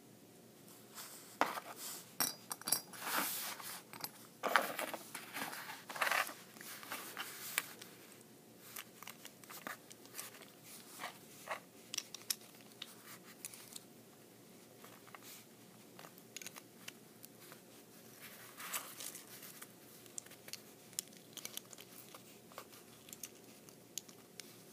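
Small Beyblade parts being handled and fitted together by hand: a string of clicks and crackling rustles, busiest in the first eight seconds, then scattered lighter clicks.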